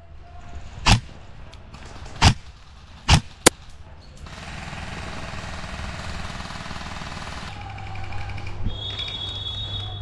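Airsoft rifle fired in single shots, four times in the first four seconds, the last two close together. A few seconds of steady hiss follow, then a low hum near the end.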